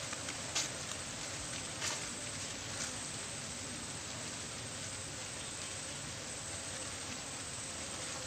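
Steady outdoor hiss, with three crisp footsteps crunching on dry fallen leaves in the first three seconds.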